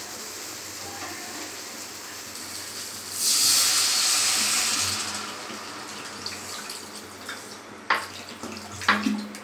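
Water poured from a plastic bottle into a hot nonstick frying pan: a loud rush of pouring and sizzling starts about three seconds in and eases off over the next couple of seconds. Near the end a spatula clicks against the pan a couple of times.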